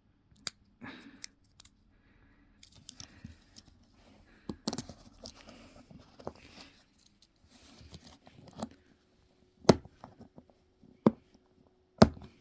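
Small plastic parts and a pry tool being worked by hand: scraping, rustling and small clicks as a switch roller's axle is levered and pushed out of a steering wheel switch housing, with three sharp clicks in the last three seconds.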